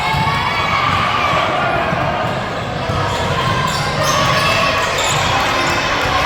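Basketball game sounds on a gym court: a ball being dribbled and bouncing, under a steady wash of spectators' voices and calls.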